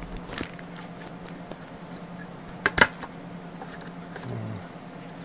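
Small plastic clicks and handling rustles as a memory stick is pressed into a Mac Pro memory riser card slot, with two sharp clicks close together a little under three seconds in, typical of the slot's retaining latches snapping shut. A steady low hum runs underneath.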